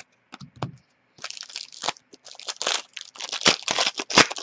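Foil wrapper of a hockey trading-card pack crinkling and crackling as it is torn open and handled, in a rapid run from about a second in. A few light taps come first.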